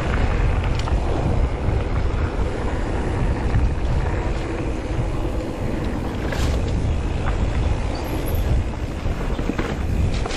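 Wind buffeting the camera microphone as a mountain bike rolls down a dirt singletrack, with a steady rumble of tyres on the trail and a few sharp clicks and rattles from the bike.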